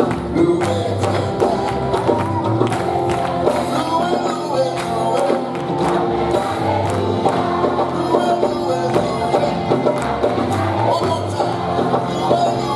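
Gospel praise music: voices singing along with a band, with percussion keeping a steady beat.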